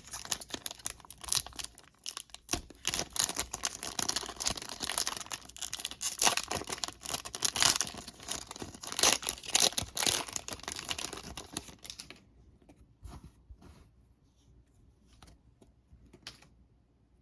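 Foil wrapper of a trading-card retail pack crinkling and tearing as it is opened, a dense crackly run lasting about twelve seconds. After that it drops to a few faint taps and rustles of handling.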